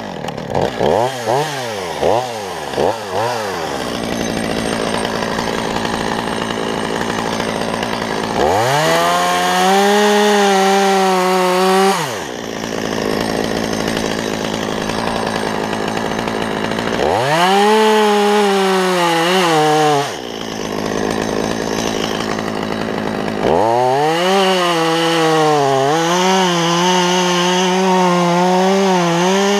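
Two-stroke chainsaw blipped in a few quick revs, then idling between three long runs at full throttle. During each run the engine note dips and wavers as the chain bites into wood.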